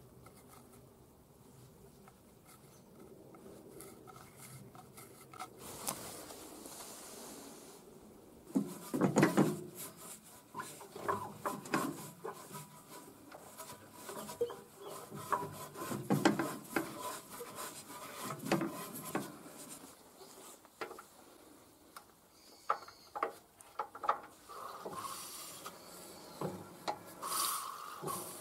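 Gloved hand rubbing and scraping over rusty excavator engine parts in irregular strokes, with a few light clicks. It is faint for the first several seconds and busier from about nine seconds in.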